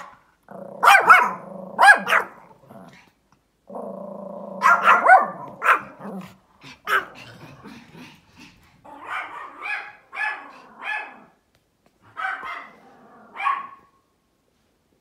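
Pomeranians barking sharply, with low growling between the barks, at a dog seen outside the window. About nine seconds in, the barking becomes quieter and comes in short clusters.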